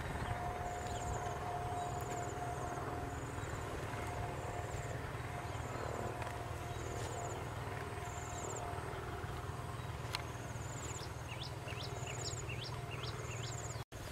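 Open rural field ambience: a steady low rumble under a short, high trill that repeats about once a second. Near the end comes a quick series of about eight rising chirps from a calling animal.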